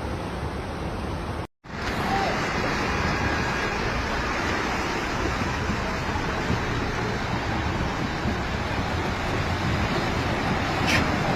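Steady rushing noise of floodwater and heavy rain in a street, broken by a brief cut to silence about a second and a half in.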